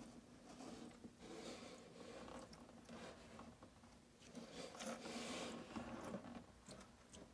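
Faint scratching and scuffing of a tegu's claws on a corrugated cardboard cat scratcher as the lizard crawls over it, coming in a few short spells with small clicks.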